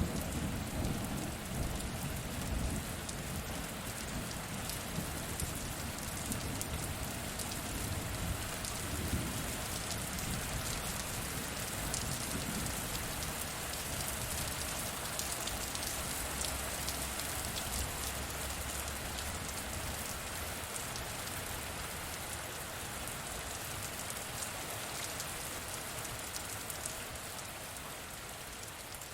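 Steady rain hiss full of small drop ticks, with a low thunder rumble dying away in the first second and fainter low rumbles later on.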